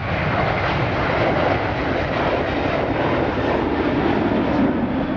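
Qatar Airways Airbus A330-300's twin jet engines at takeoff thrust as the airliner lifts off and climbs out: a loud, steady rumbling roar. Partway through, a hum within it slowly drops lower in pitch as the plane moves away.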